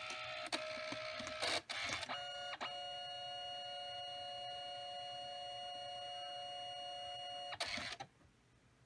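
Canon Selphy CP1200 dye-sublimation photo printer's mechanism running its power-on cycle. A motor whirs with several clicks over the first two and a half seconds, then gives a steady whine for about five seconds. It ends in a short clatter and stops about eight seconds in.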